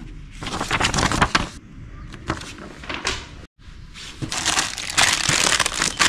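Paper leaflets rustling and a clear plastic bag of small parts crinkling as they are handled, in irregular bursts with a brief break a little past halfway. The crinkling is densest near the end.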